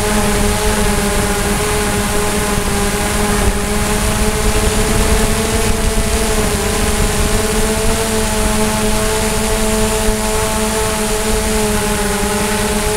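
DJI Mavic quadcopter drone's motors and propellers running steadily in flight: a steady whine of several held tones that waver slightly in pitch, over a rough low rumble.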